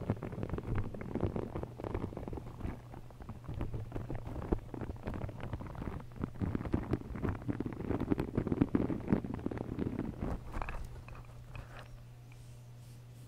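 A soft, textured green elephant squeeze toy squeezed and rubbed against a foam-covered microphone, giving dense rapid crackles and rustling right at the mic. The handling dies away about ten seconds in, leaving a low steady hum.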